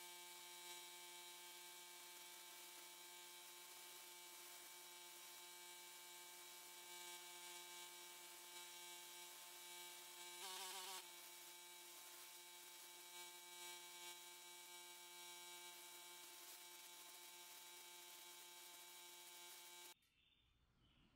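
Faint, steady electrical hum with a row of even overtones, wavering briefly about halfway through and cutting off suddenly near the end.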